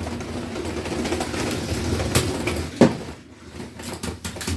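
LEGO combat robot's electric motors and plastic gears whirring and rattling as its weapon spins up, with a sharp knock about two seconds in and a louder one just before three seconds.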